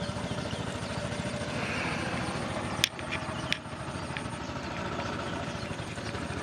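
A small engine running steadily with a fast, even pulse, and two sharp clicks close together a little before midway.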